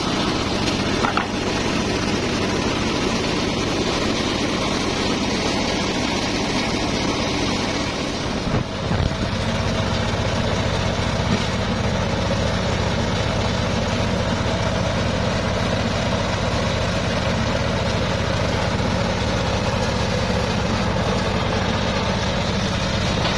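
Engine of a homemade circular-saw bench running steadily, driving the large saw blade between cuts.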